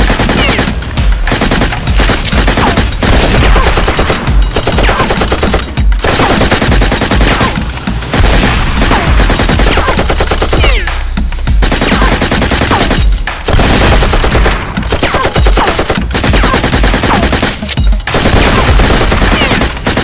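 Rapid automatic-gunfire sound effects for toy blasters being fired, coming in long bursts with short breaks every couple of seconds.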